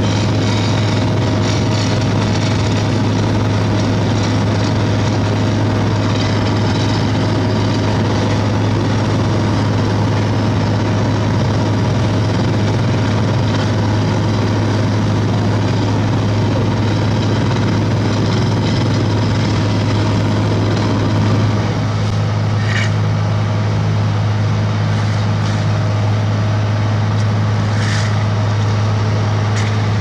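Sumitomo HA60C asphalt paver's diesel engine running steadily, a constant low drone. The sound shifts slightly about two-thirds of the way through, and two short sharp knocks come near the end.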